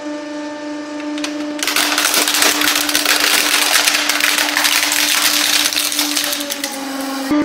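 A hydraulic press hums steadily as its ram crushes a scale-model Bugatti Veyron. The toy car's body starts cracking and splintering about one and a half seconds in, a dense crunching that goes on until just before the end. The hum drops slightly in pitch near the end as the press takes the load.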